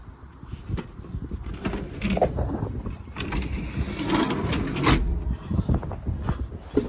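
Skid steer loader working: a low engine rumble with irregular knocks and clanks.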